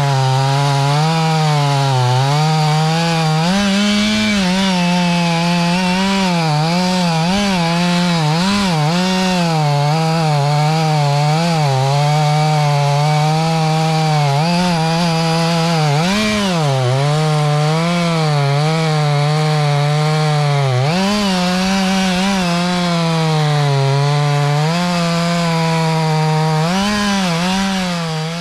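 Two-stroke chainsaw running hard and cutting into oak wood, its engine pitch dipping and recovering again and again as the chain bites and clears.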